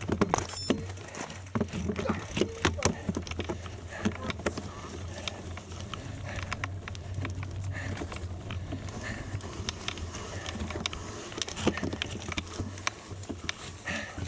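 Bicycle riding on a gravel road: tyres crunching over loose stones, with frequent sharp clicks and rattles throughout over a steady low rumble.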